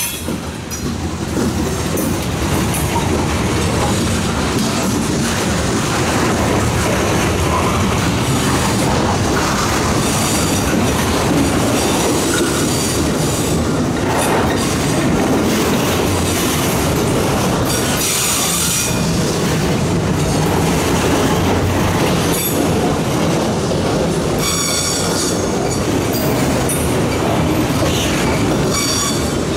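Freight cars rolling past on a curve: a steady rumble and clatter of steel wheels on the rails, with high wheel-flange squeal rising a few times around the middle and later on.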